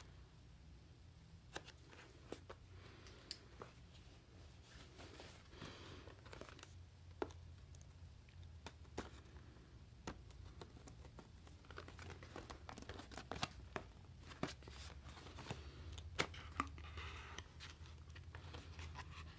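Packaging being opened and handled: scattered clicks and taps with short bursts of tearing and crinkling, over a low steady hum.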